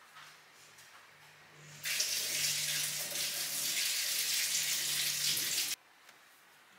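Water running from a tap for about four seconds, switched on and off abruptly, over a low steady hum that stops with it.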